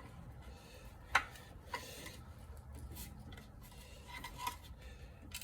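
Faint scraping and rubbing of metal tools and transmission parts being handled, with a few sharp clicks, about a second in, near two seconds and near the end.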